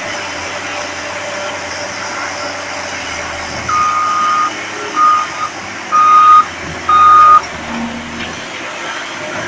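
Caterpillar 938H wheel loader's diesel engine running steadily while working, with its reversing alarm beeping four times in the middle. The beeps are single-pitched and uneven in length and spacing, and they are the loudest sound.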